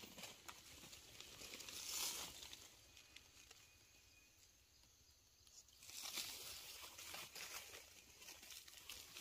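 Faint rustling and crackling of dry leaf litter and loose soil as a hand works at a small wire ground trap. The rustles come in bouts about two seconds in and again from about six seconds, with a quieter stretch between.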